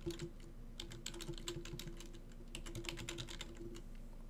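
Typing on a computer keyboard: quick runs of key clicks with a couple of short pauses, stopping shortly before the end.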